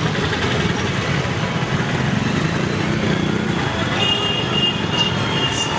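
Steady din of busy street traffic, a dense rumble of passing vehicles, with a high-pitched tone sounding in a few short broken beeps over the last two seconds.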